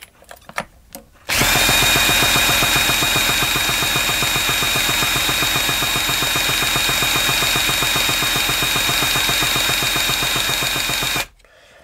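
Electric starter spinning over an HPI Firestorm's nitro glow engine: a steady whine with a rapid, even pulse, starting about a second in and cutting off sharply near the end. The engine turns over without firing, and the owner thinks its compression is not right.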